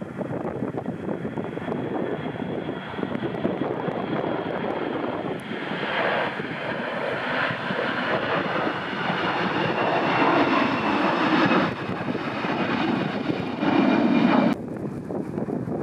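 Airliner passing the airport, its engines running with a steady high whine over a rushing noise, growing louder toward the end. The sound cuts off abruptly about fourteen and a half seconds in, leaving wind on the microphone.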